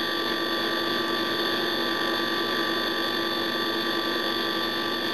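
Small bar fridge's refrigeration compressor running steadily, a hum with several steady higher tones over it. The fridge has just been regassed and is pulling down to temperature.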